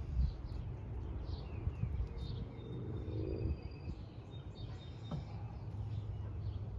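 Small birds chirping and calling now and then, over a steady low rumble.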